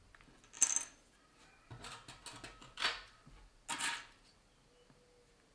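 Hand tools and the plastic cover of a Samsung Galaxy A20e being handled and pried on a work surface: a sharp clatter about half a second in, a run of quick clicks and scrapes a couple of seconds later, and another clatter near four seconds.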